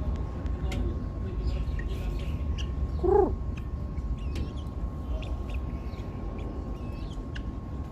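Birds calling: scattered short high chirps, with one louder call that bends up and down about three seconds in, over a steady low rumble.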